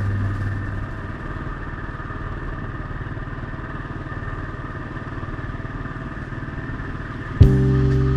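Motorcycle engine running steadily under way. Near the end a loud, steady low tone starts abruptly and is louder than the engine.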